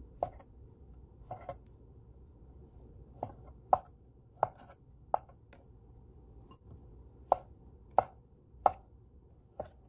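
Chef's knife chopping resinous polypore mushroom on a wooden cutting board: about ten sharp knocks of the blade at an uneven pace.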